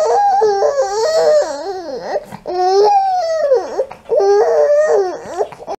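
A five-month-old baby crying in frustration, face down at tummy time and unable to crawl: a string of about four long cries with short breaths between.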